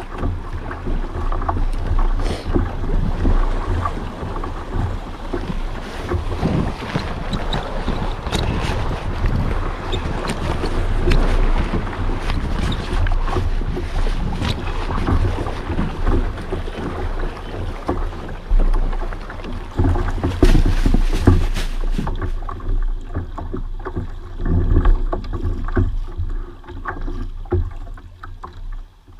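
Wind buffeting the camera microphone and water slapping against a kayak hull, a steady rumble and splashy hiss with scattered knocks and clicks; it eases off somewhat near the end.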